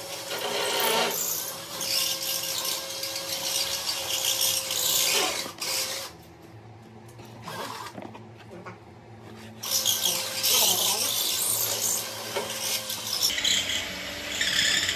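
Electric drill boring into a wall, running with a steady motor whine and grinding noise in two long bursts with a pause of about four seconds between them.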